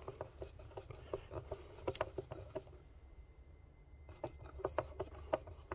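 Phillips screwdriver turning out a screw from a woofer driver's metal frame: faint, irregular clicks and scrapes, easing off for about a second in the middle, over a low rumble.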